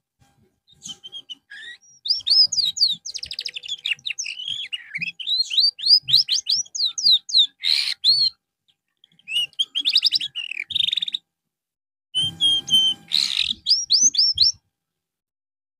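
Canary singing: fast, chattering phrases of trills and rising and falling whistled notes, broken by two short pauses and stopping a little before the end.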